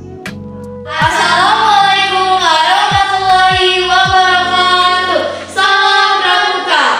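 A song with young female voices singing together. The voices come in loud about a second in over a quiet plucked-string intro and break off briefly just past the middle.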